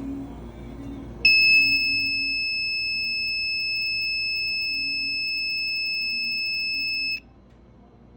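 Buzzer of an LM358 fire alarm circuit sounding one continuous, steady high-pitched tone: the alarm has been triggered. It starts abruptly about a second in and cuts off suddenly about six seconds later.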